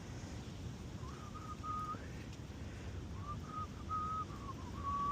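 A person whistling a tune in two short phrases with a pause between them, over steady low background noise.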